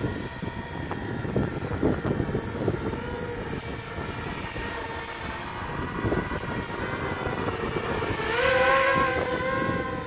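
RoboCat 270 racing quadcopter's brushless motors and propellers whining in flight, the pitch shifting with throttle and the whine growing louder about eight seconds in as it passes close.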